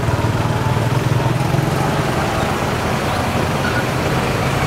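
Steady street traffic noise with the low hum of running vehicle engines.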